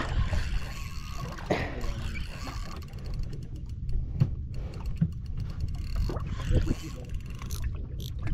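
Fishing boat's engine running with a steady low hum, with a few soft knocks on deck.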